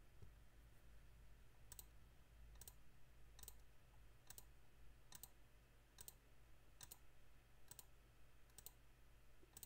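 Faint computer mouse clicks, evenly spaced at a little over one a second: a button being clicked again and again.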